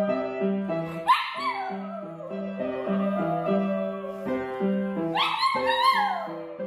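A small dog howls along to an upright piano being played, twice: the first howl comes about a second in, rises and then slides slowly down; the second comes about five seconds in and falls away. The piano plays slow chords throughout.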